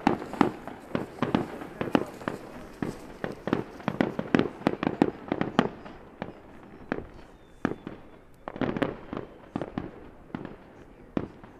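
Aerial fireworks bursting in a rapid, irregular run of bangs that thins out about halfway through, with another quick cluster of bangs later on.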